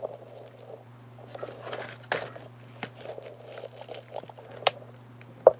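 Light handling noises at a workbench: scattered soft clicks and rustles, with a few sharper clicks, the loudest near the end, over a steady low hum.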